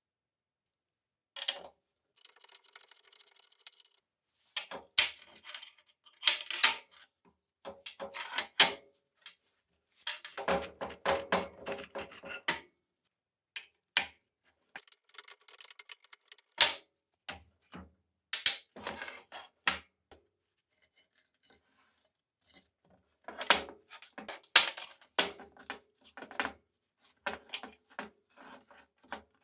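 Steel parts of a Handyman jack's lifting mechanism clinking and clanking as they are handled and taken apart, in irregular sharp knocks with a few short stretches of scraping and rattling.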